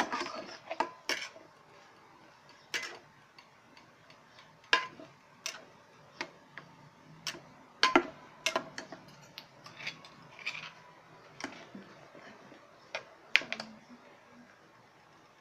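Stainless-steel ladle knocking and scraping against the sides and rim of an aluminium pot while stirring a thin curry: irregular sharp clinks about once a second, with a louder double knock near the end.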